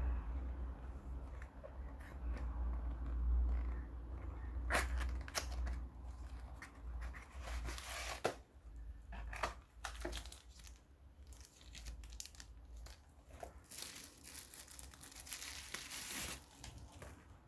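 Packaging being handled: a cardboard knife box opened and a bubble-wrapped folding knife slid out and turned in the hands, the bubble wrap crinkling and rustling with irregular crackles and a few louder bursts.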